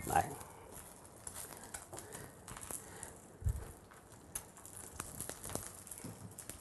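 An egg frying in oil in a stainless steel pan: faint sizzling with scattered small crackles and pops. There is a dull knock about three and a half seconds in.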